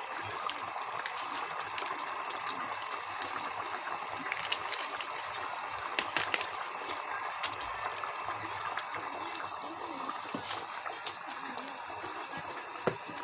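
A pot of chicken curry in coconut milk bubbling steadily on the boil. A few sharp clicks come through: around six seconds in, at about ten seconds and near the end.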